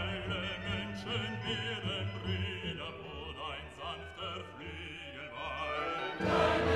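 Music with a solo operatic voice singing with strong vibrato over soft accompaniment. About six seconds in, a louder, fuller passage comes in.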